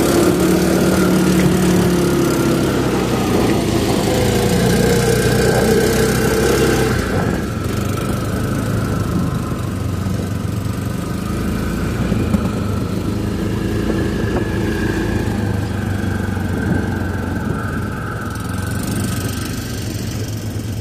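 Off-road vehicle engine running under load on a steep trail, its note rising and falling with the throttle. It is louder and noisier for about the first seven seconds, then settles to a lower running note.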